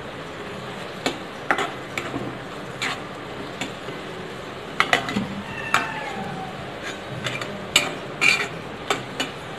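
A white spatula stirring and scraping thick onion-tomato masala around a black kadhai, with irregular knocks and scrapes against the pan over a steady hiss.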